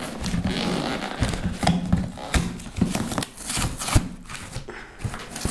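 Hands handling and picking at a cardboard shipping box on a wooden table: irregular scraping, tapping and cardboard knocks, with one sharp knock about four seconds in.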